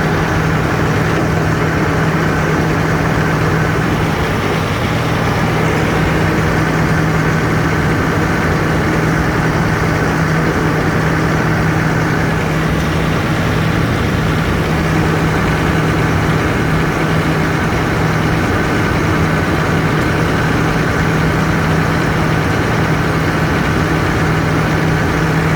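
Sawdust briquetting machine running steadily, a loud, unchanging mechanical noise with a constant low hum.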